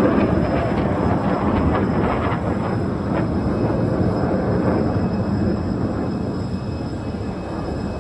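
Aircraft flying past, its engine noise strongest at the start and slowly fading as it moves away.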